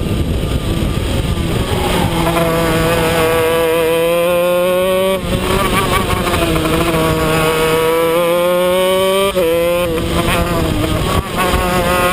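125cc two-stroke shifter kart engine at racing revs, its pitch climbing steadily and then dropping sharply several times (about 2, 5, 9 and 11 seconds in) as the driver works through the gears.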